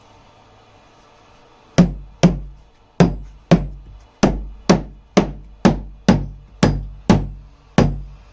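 Hammer blows on wood, about a dozen at an uneven pace of roughly two a second, each a sharp knock with a short ring, starting about two seconds in: typical of tapping a wooden inlay down into its CNC-cut pocket.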